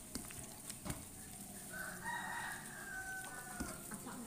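A rooster crows once, starting about two seconds in and lasting about a second and a half. There are a few faint clicks and squelches from a hand working spice paste into raw meat in a steel bowl.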